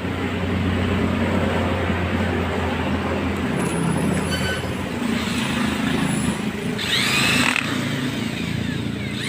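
Maktec MT90 electric angle grinder running with a rough growl, the sound the title puts down to a burnt armature.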